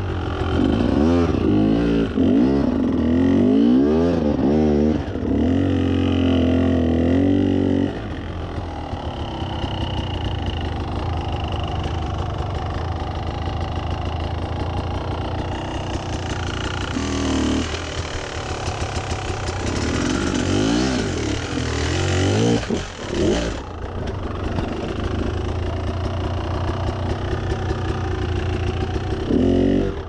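Beta enduro motorcycle engine revving in repeated bursts under load on a steep rocky climb, its pitch rising and falling over and over. It runs steadier through the middle, revs in bursts again later, and drops away at the very end.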